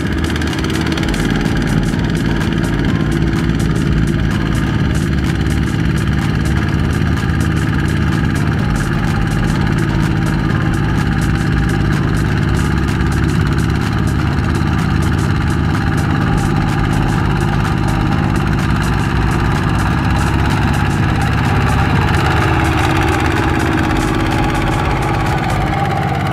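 Two-wheel walking tractor's single-cylinder diesel engine chugging steadily under load as it drags a trailer of rice sacks through sticky mud.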